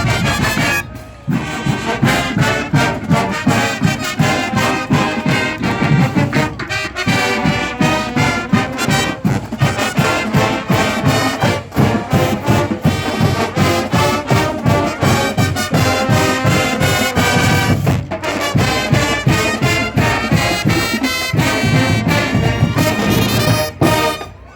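Marching band playing a brass-led piece with a steady driving beat from the drumline, trumpets and trombones carrying the tune; it cuts off suddenly at the end.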